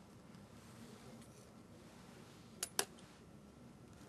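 Two quick, light clinks close together about two and a half seconds in, over quiet room tone: a small hard tool knocking against the glass weighing plate while pigment is measured out.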